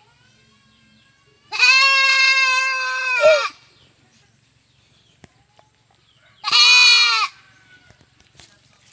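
Goat bleating twice: one long bleat of about two seconds, then a shorter one a few seconds later.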